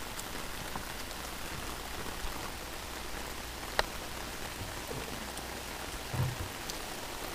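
Steady rain falling on pavement, an even hiss, with one sharp click a little past halfway and a short low thump near the end.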